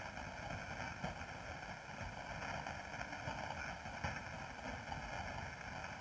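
Quiet passage of live ambient electronic music: a soft, steady, wind-like noise texture with faint held tones and a low rumble.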